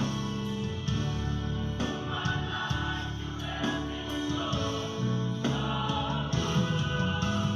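A choir singing a gospel song over instrumental backing, with long held notes.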